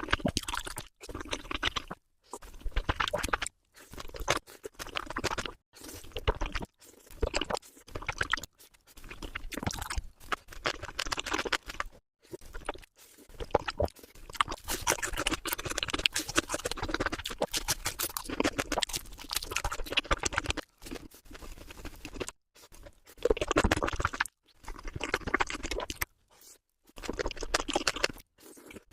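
Close-miked crunching and chewing of crisp food, sped up into a rapid crackle. It comes in short stretches cut off abruptly by brief silent gaps.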